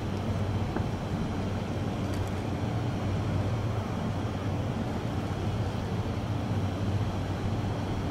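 Steady low hum of a standing JR 205-series electric train's onboard equipment: an even drone that does not change.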